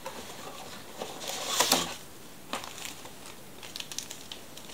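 Handling noise from opening a cardboard model-kit box and taking out its plastic-bagged parts and paper sheets: a louder rustling scrape about a second and a half in, then scattered light crinkles and taps.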